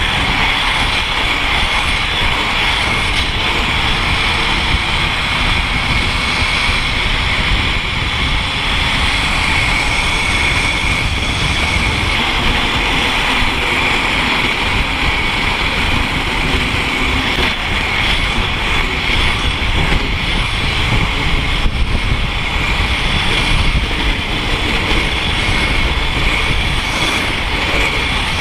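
Wind rushing steadily over the microphone of a camera carried by an inline skater going fast downhill, mixed with the rolling of skate wheels on asphalt and a steady high whine.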